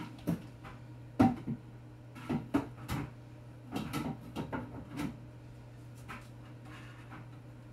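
A series of short knocks and clatters from things being handled and set down, the loudest about a second in and a quick cluster around the middle, over a steady low hum.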